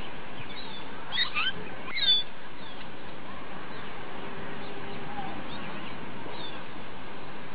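Small birds chirping in short high calls, a cluster about one to two seconds in and a few fainter ones later, over steady background noise.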